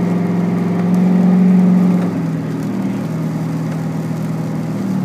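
Car engine and drivetrain droning from inside the cabin, the pitch stepping up and down and growing louder for about a second in the middle. It sounds like the tires spinning, which the driver puts down to the transmission slipping.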